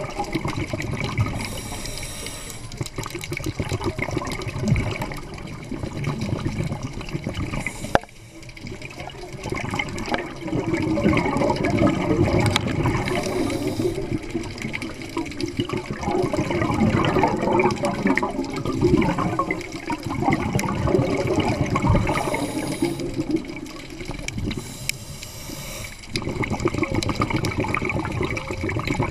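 Scuba diver breathing through a regulator underwater: long rushes of exhaled bubbles, broken every several seconds by a short hissing inhalation.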